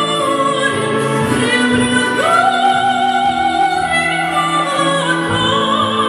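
Female opera singer singing over backing music, holding one long note with vibrato from about two seconds in until about five seconds in.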